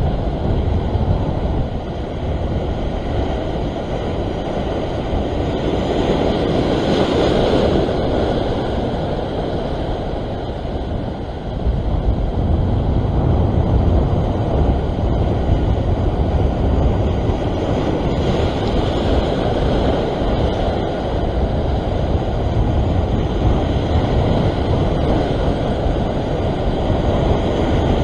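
Wind buffeting the microphone over the wash of ocean swell surging against a rock ledge, with no clear single event; the rumble steps up in loudness about halfway through.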